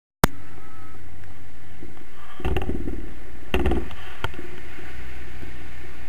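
Steady wind rushing over a hand-held action camera's microphone in paraglider flight, with two louder gusts or handling knocks near the middle and a few small clicks.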